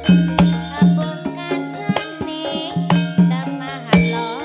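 Live Javanese campursari band music: kendang hand-drum strokes land in a quick, steady rhythm about three times a second, over sustained keyboard notes.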